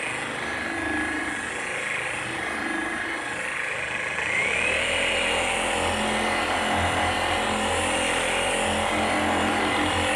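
Flex 3401 forced-rotation dual-action polisher running on a white foam pad against car paint. It runs steadily at its lowest speed setting to spread the finishing glaze, then is turned up to setting three about four seconds in, and its whine rises in pitch and gets louder before holding steady at the higher speed.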